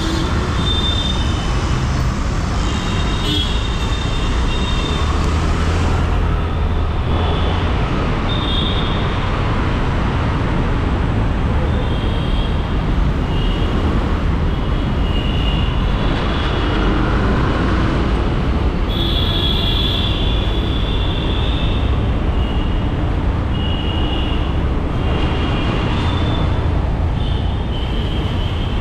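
Road traffic noise with the heavy, steady rumble of wind and riding on a bike-mounted action camera. Short high-pitched tones come and go every second or two, the strongest about two-thirds of the way through.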